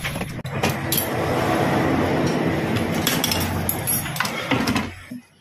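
Metal lathe running with its tool cutting a steel motorcycle crankshaft end, a steady metallic scraping over a low motor hum. It winds down and stops near the end.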